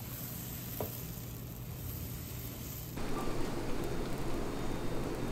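Batter sizzling on a hot waffle-bread mold iron, crackling louder from about three seconds in. Before that there is only a steady low hum and a single click.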